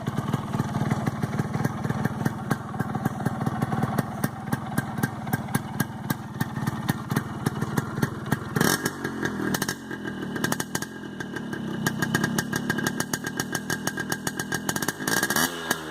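Yamaha RX100's single-cylinder two-stroke engine on its stock exhaust, idling with rapid, even firing, then blipped twice, once about halfway and once near the end, each time the revs falling back toward idle.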